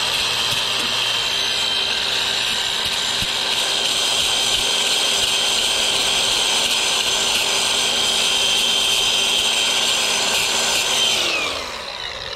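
Milwaukee cordless angle grinder running at a steady speed with a high whine, grinding the fan motor shaft smooth so the condenser fan blade can be slid off. About eleven seconds in, the motor is released and winds down.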